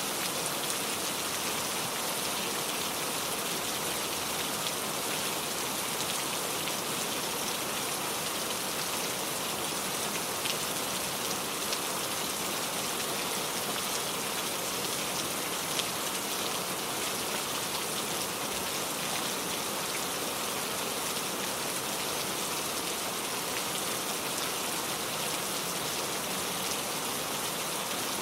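Heavy rain falling steadily: a dense, even hiss of rain on a surface, with a few sharper drop ticks here and there.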